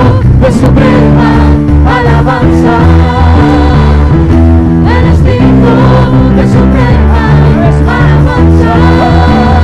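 Church worship music: a band playing with voices singing over a strong, steady bass line.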